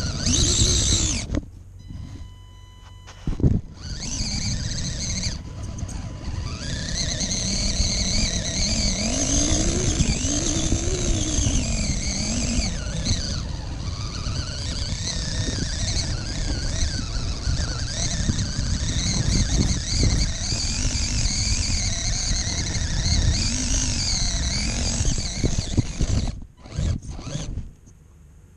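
Radio-controlled rock crawler's electric motor and gear drivetrain whining as it drives, the pitch wavering up and down with the throttle. It pauses briefly near the start and cuts off a couple of seconds before the end.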